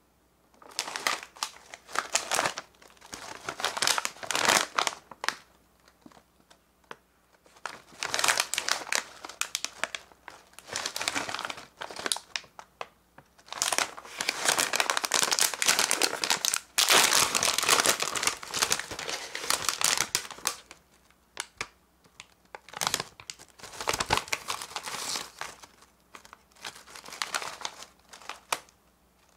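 Plastic potato-chip bags crinkling as they are handled, in bursts with short pauses. The longest, loudest crinkling comes about halfway through, as a Calbee Kataage Potato bag is pulled open.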